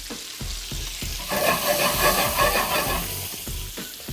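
Fingerling potatoes and grape tomatoes sizzling in butter in a hot pan, with a louder stretch of sizzling and scraping for a couple of seconds in the middle.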